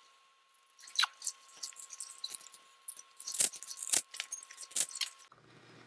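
Steel roller drive chain of a Yamaha YZ125 dirt bike clinking and jingling as it is handled and fed around the sprockets: a run of irregular sharp metallic clicks.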